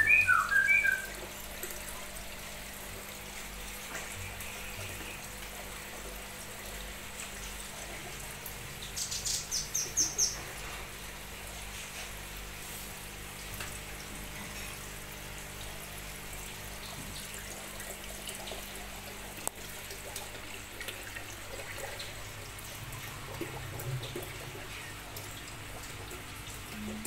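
Birds chirping: a short cluster of chirps at the very start, then a quick run of about six high chirps around nine to ten seconds in, over a steady background hiss.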